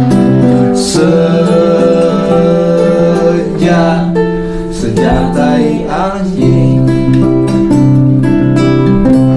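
Music: acoustic guitar strumming chords, with a sung vocal line wavering in pitch through the middle.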